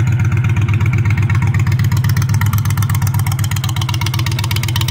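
Honda Fury's V-twin idling steadily through an aftermarket FSD exhaust, a deep, even run of rapid exhaust pulses.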